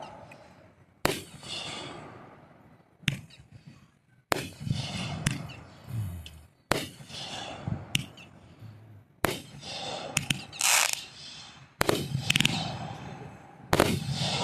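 Aerial fireworks shells bursting overhead: about ten sharp bangs a second or two apart, each trailing off in a rolling echo, with a couple of brief hissing crackles between them.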